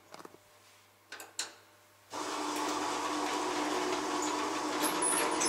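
Passenger lift: two soft clicks, then about two seconds in a steady mechanical hum starts abruptly as the doors slide shut and the lift runs.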